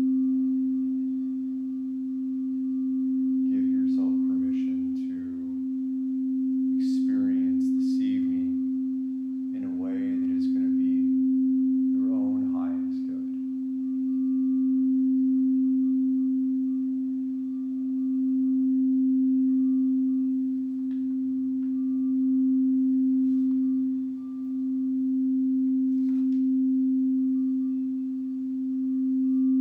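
Frosted quartz crystal singing bowl being played, ringing with one steady low tone that swells and eases about every three seconds. A voice sounds briefly a few times in the first half.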